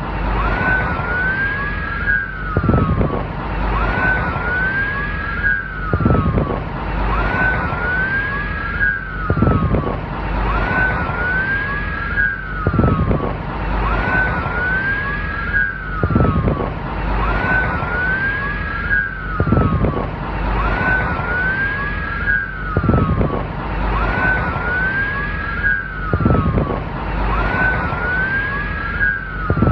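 Police car siren sounding continuously, its tone sweeping up and falling back over and over, above a steady noise bed with a low rumble that swells about every three seconds.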